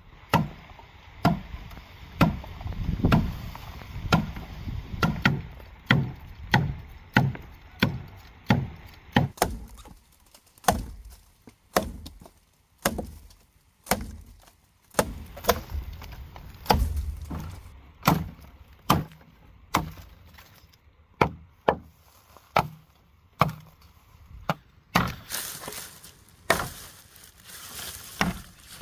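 A long-handled hooked machete chopping into a green bamboo culm. It makes a steady run of sharp blows, about two a second at first and more spaced out later. Near the end there is a few seconds of rustling noise.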